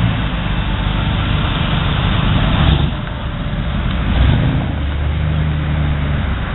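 Classic cars driving slowly past, their engines running low. A 1950s Chevrolet pickup passes close about four seconds in, its engine note rising as it nears, then holding steady and low as it pulls away.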